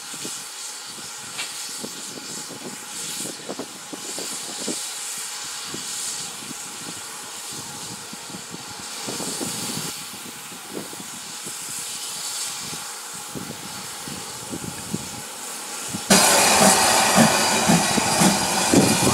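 Steam locomotive, the GWR Small Prairie tank 4555, working its train with steam hissing and scattered knocks from the wheels and train. About sixteen seconds in the sound jumps much louder as the engine is heard close by, steam hissing hard.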